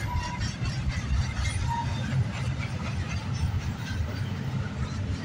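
Double-stack container well cars of an intermodal freight train rolling past: a steady low rumble of steel wheels on rail with scattered clicks, and two brief squeals in the first two seconds.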